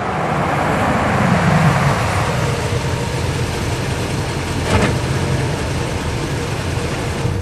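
Pickup truck engine running loud and close, with a steady low drone under a broad noise, and a short sharp knock a little under five seconds in.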